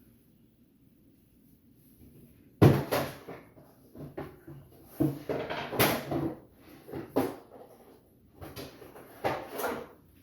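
Rummaging among tools and small hard objects: a sharp knock about two and a half seconds in, then several seconds of irregular clattering and knocking.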